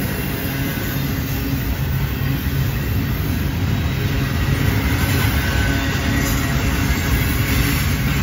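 Double-stack container well cars of a freight train rolling past, a steady low rumble of steel wheels on rail.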